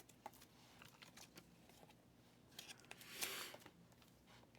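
Near silence with faint handling sounds of trading cards and their packaging: a few light clicks and one brief rustle about three seconds in.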